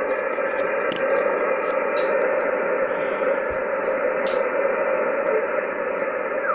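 HF radio receiver putting out steady static and band noise, with no Morse tone standing out: the coded signal has faded.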